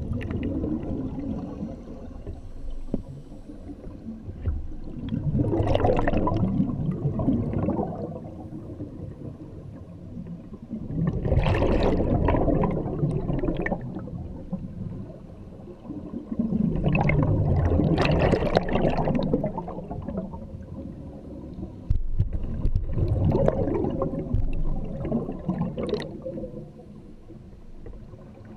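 A scuba diver's regulator underwater: exhaled bubbles rush and gurgle in bursts roughly every six seconds, one burst per breath, with quieter gaps between.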